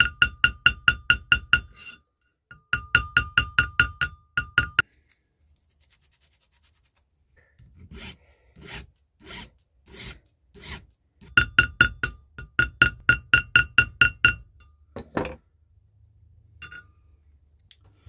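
Small hammer tapping rapidly on the end of a silver hinge pin, mushrooming it over to rivet a clasp hinge. It comes in quick runs of about five or six ringing metallic taps a second, three runs in all, with some duller, softer taps between the second and third.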